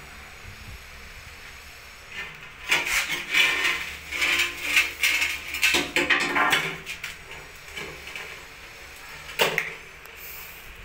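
A steel trowel scrapes tile adhesive onto the back of a ceramic wall tile in a run of irregular strokes, then a single sharp knock near the end.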